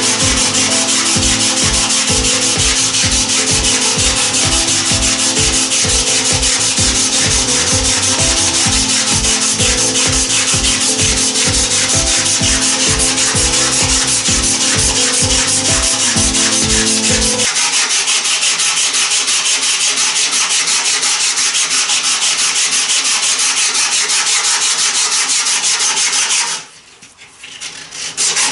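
A strip of sandpaper wrapped around a wooden mast, pulled rapidly back and forth in a shoeshine motion to sand the spar round: a continuous fast rasping that breaks off briefly near the end and then resumes.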